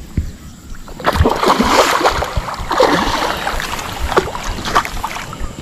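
Water splashing from a hooked toman (giant snakehead) fighting at the surface close to the boat. The splashing starts about a second in and goes on in irregular bursts.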